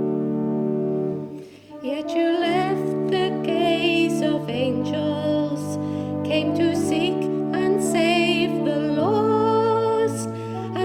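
Organ holds a chord, breaks off briefly about a second and a half in, then plays on under singing, as in a hymn.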